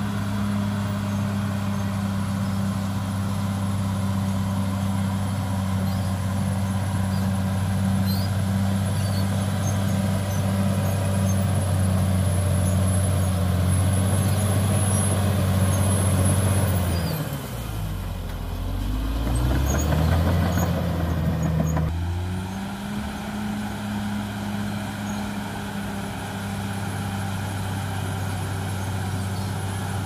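Caterpillar D6R XL bulldozer's diesel engine running steadily with a thin high whine as the dozer pushes earth and rock with its blade. About seventeen seconds in, the engine note drops sharply, then climbs back up a few seconds later.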